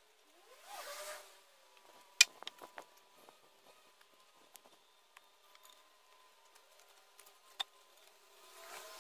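Work noise from a heavy concrete slab being shifted by hand: brief scraping rustles and a sharp knock a little over two seconds in, followed by a few lighter clicks, with a faint steady high tone underneath.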